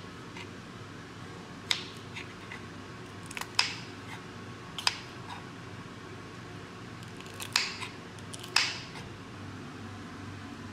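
Kitchen knife striking a wooden cutting board while slicing carrot and green capsicum: about half a dozen separate sharp knocks at an uneven pace, over a steady low hum.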